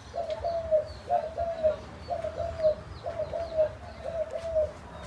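A caged decoy dove cooing: short two- and three-note coos repeated in phrases about once a second. Small birds chirp faintly in the background.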